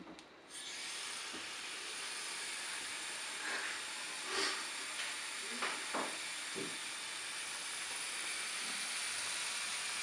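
Tap water running into a bathroom washbasin, turned on about half a second in and pouring steadily onto a bathing rabbit's belly, with a few brief splashes in the middle.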